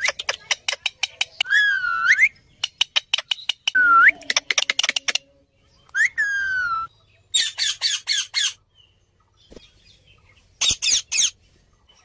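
Indian ringneck parakeets calling: runs of rapid clicks, several loud whistles that sweep down and back up, and short harsh squawks near the end.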